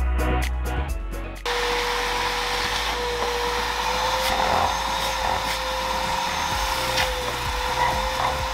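Music at first, then about a second and a half in a vacuum cuts in and runs steadily with a constant whine, its hose sucking up wood sanding dust.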